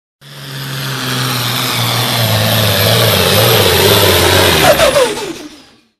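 Turbocharged diesel pulling tractor running at full throttle down the track, growing steadily louder, then its pitch drops sharply about five seconds in before the sound fades out.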